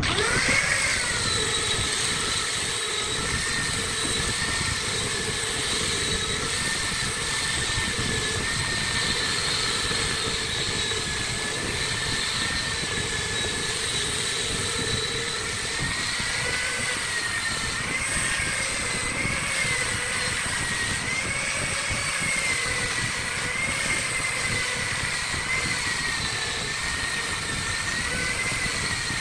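Angle grinder with a sanding disc spinning up at the start, then a steady high whine whose pitch wavers and dips from about midway as the disc is pressed onto the wood turning on the lathe.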